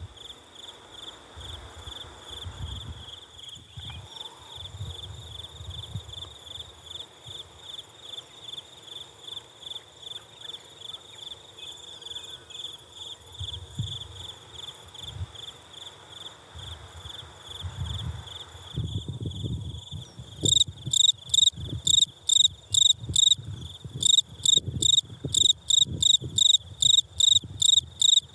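A cricket stridulating: a fast run of high-pitched chirps, rubbing its wings together. About twenty seconds in the chirps become louder and more clearly separated, with a low rumble underneath.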